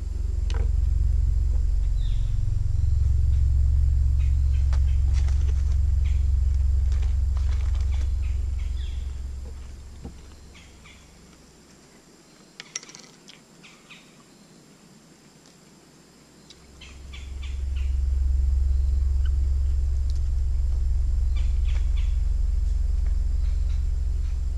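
A deep, steady low rumble, loud for about ten seconds, fading out, then returning about seven seconds later. Under it and in the lull come small clicks and scrapes of a pocket knife coring an apple, and a few faint bird chirps.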